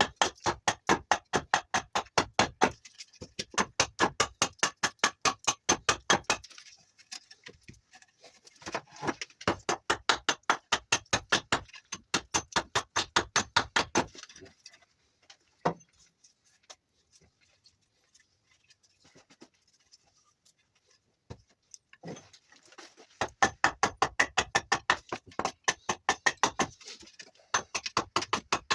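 A knife whittling juniper wood: quick, short carving strokes at about five a second, in runs of a few seconds. A long pause comes roughly halfway through, broken by a couple of single cuts, before the strokes pick up again near the end.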